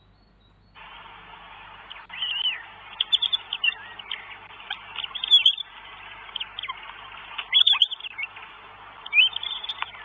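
Northern goshawk calls at the nest: a string of high, arching calls repeated every second or two, over a steady hiss that cuts in about a second in.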